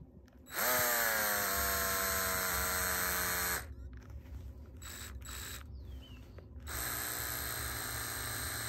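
DeWalt DCD776 cordless drill/driver run with nothing to cut: a motor whine held for about three seconds, dipping slightly in pitch after it starts, two short blips of the trigger, then a second long run near the end. The drill has just overheated and, in the owner's words, set itself on fire.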